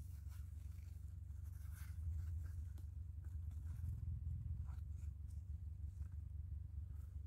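Low, steady rumble on the microphone, with faint scattered rustles and small snaps of cucumber leaves and stems as side shoots are pinched off by hand.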